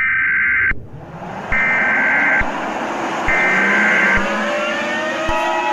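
Emergency Alert System SAME header: three bursts of digital data tones, each about a second long with short gaps, over a rushing noise that builds and rises in pitch. Near the end the steady two-tone EAS attention signal begins.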